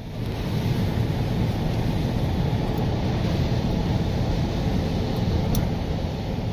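Steady low rumble of a car on the move, heard from inside the cabin: engine and road noise with no changes in pace.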